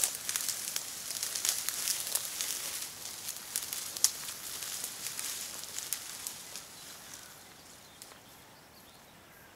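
Close rustling and crackling with many small sharp clicks, fading away after about seven seconds.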